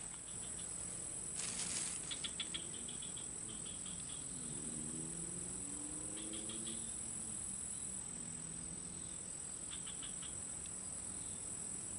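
Insects, crickets among them, droning steadily at a high pitch, with short rapid chirping trills breaking in every few seconds. A brief noise about a second and a half in.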